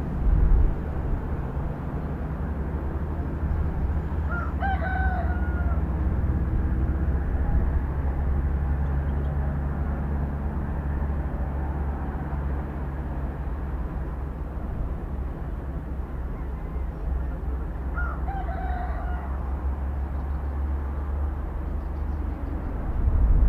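A rooster crows twice, about fourteen seconds apart, each crow lasting about a second, over a steady low rumble.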